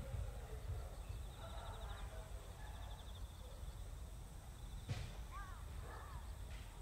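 Quiet outdoor ambience: a low steady rumble with faint distant voices in the first couple of seconds and a brief high ticking trill. A single sharp knock comes about five seconds in, followed by a few short bird calls.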